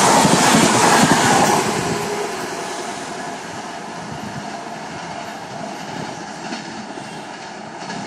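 Rajdhani Express passenger coaches rushing past at speed close by, their wheels clattering over the rail joints. About two seconds in the sound drops away as the last coach passes, leaving a quieter steady rumble of the train moving off.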